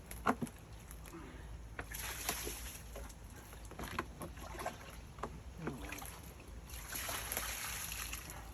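Backed-up sewer water sloshing and splashing as a 5-gallon bucket is dipped into the flooded hole and emptied, with a couple of rushes of pouring water and a few knocks of the bucket.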